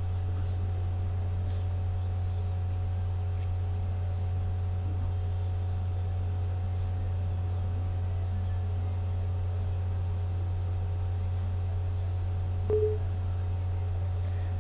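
Steady low electrical hum in the recording, with faint steady higher tones above it. A short tone sounds briefly about 13 seconds in.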